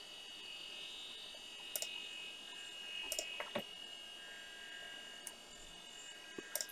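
A few faint, scattered clicks over the steady hum and high whine of a running computer.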